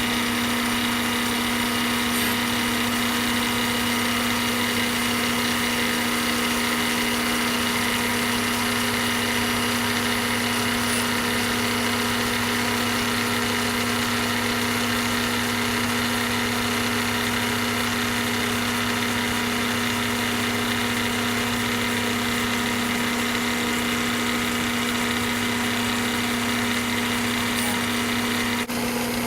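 Bridgeport milling machine running steadily, its half-inch 2-flute high-speed steel end mill cutting the profile of an aluminum hand knob. The sound is a constant, kind of noisy hum with a higher whine over it.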